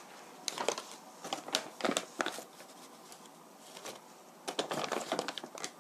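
Plastic food bags of potato starch and flour crinkling and rustling as they are handled and a cup scoops flour, with light clicks and knocks, in two spells, the second near the end.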